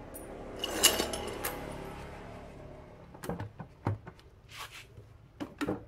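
Light metallic clinks and taps of hand tools and loose bolts being handled: a scattering of separate sharp clicks, busiest in the second half.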